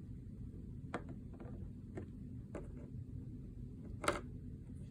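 A few light clicks and taps from small objects being handled, spaced about a second apart, the loudest about four seconds in, over a steady low hum.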